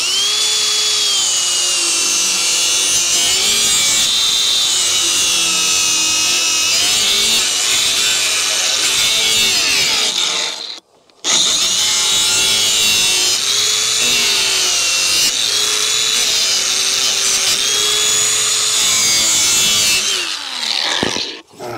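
Cordless DeWalt power tool running at high speed and cutting a bevel along the edge of a wood panel, its motor whine dipping and recovering as it bites into the wood. It makes one pass of about ten seconds, stops briefly, makes a second pass of about nine seconds, then spins down near the end.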